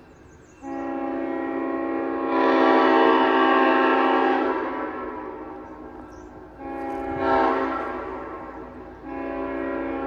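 Ex-Norfolk and Western 1953 S5T five-chime train horn with bronze tabbies, blown in three blasts of one steady chord. The first starts about half a second in, swells louder about two seconds in and fades away. A shorter blast comes near seven seconds, and a third starts about nine seconds in.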